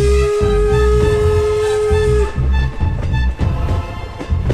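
Steam locomotive whistle of Baldwin-built No. 475 sounding one long, steady blast that cuts off a little over two seconds in, over the low rumble of the train running on the rails.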